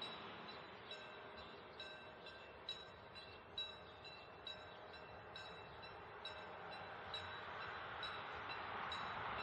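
Level-crossing warning bell striking steadily, about once a second, each strike ringing on briefly. Under it, the faint rumble of an approaching CDC diesel commuter railcar grows louder toward the end.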